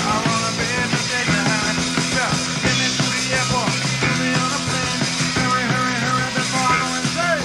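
Punk rock band playing live, with electric guitar and drums, loud and unbroken.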